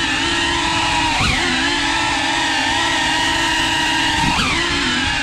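FPV cinewhoop drone's motors and ducted propellers whining steadily, the pitch dipping sharply and recovering twice, about a second in and again about four seconds in, as the throttle is eased and opened again.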